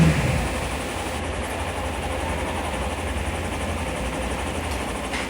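Hero Super Splendor's 125 cc single-cylinder engine idling steadily just after being started, heard close to the exhaust; it settles from a slightly louder moment at the start into an even idle.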